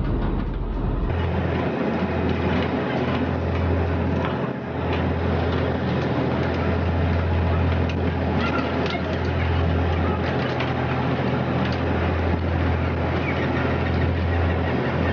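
A steady low engine drone under a constant wash of noise, with scattered small clicks and knocks.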